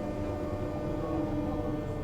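Onboard sound of a JR West 201 series electric train: a steady electrical hum of several tones over a low rumble.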